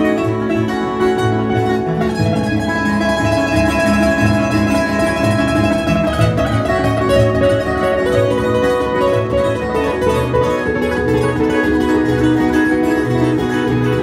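Two acoustic guitars playing a lively instrumental duet together, with picked melody notes over a regularly pulsing bass line.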